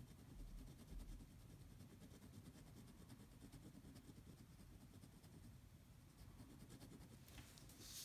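Very faint scratching of a pen on paper as short hatching strokes fill in a dark area, over a low steady room rumble. Near the end comes a louder rustle.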